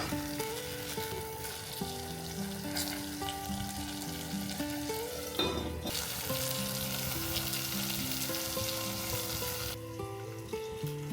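Plantain slices frying in hot oil, a steady sizzle, with background music playing over it. The sizzle cuts off near the end, leaving the music.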